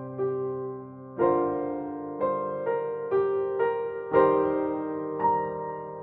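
Slow piano music: notes and chords struck every half second to a second, each ringing out and fading.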